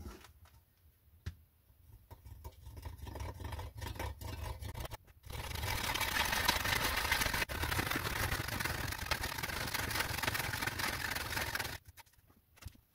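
Hand saw cutting into a split log on a chopping block. At first there are scattered short strokes. About five seconds in it becomes continuous steady sawing, which stops near the end.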